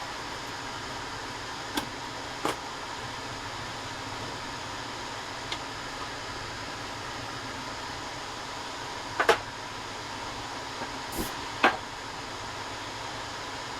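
Steady background hum with a handful of light, sharp clicks and knocks scattered through it. The loudest are a quick pair about nine seconds in and a single knock shortly before the end.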